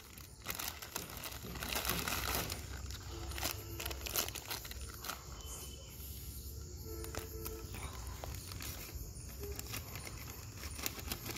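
Plastic chum packet crinkling and rustling as it is handled, with scattered small clicks and taps.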